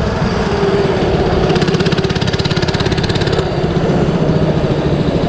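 A 97cc Baja mini bike's small single-cylinder four-stroke engine running loud as the bike is ridden, its pitch shifting with the throttle and easing off a little over three seconds in.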